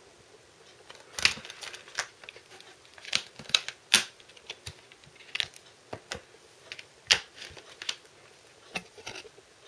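Irregular clicks and taps of a plastic Blu-ray case and its discs being handled.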